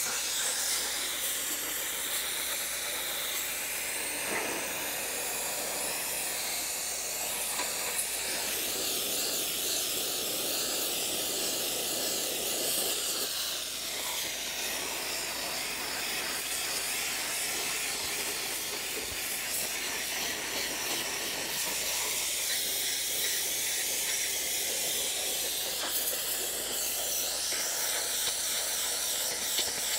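Pressure washer wand with a wet sandblasting adapter, spraying a steady jet of water and sand against a steel pickup truck frame to strip its rust and paint.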